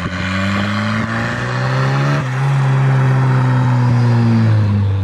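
Volvo 740 drift car's engine pulling hard, climbing in revs for about two seconds, then a gear change and a steadier pull as the car drives past.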